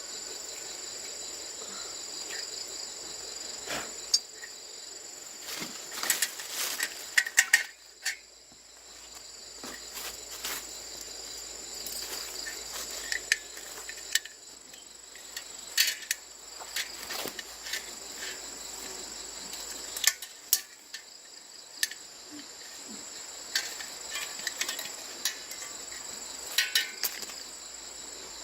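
Steady high-pitched chorus of crickets, with scattered sharp clicks and knocks throughout, a cluster of the loudest ones about six to eight seconds in.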